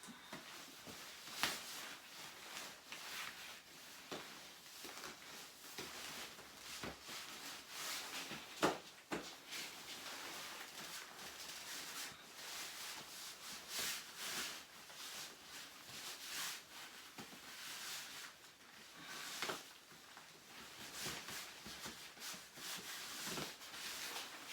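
Close rustling and scuffing with many irregular sharp clicks, the loudest click about eight and a half seconds in.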